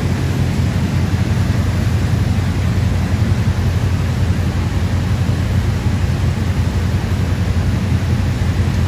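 A steady low rumble with an even hiss above it, unchanging throughout and with no distinct strikes or clicks.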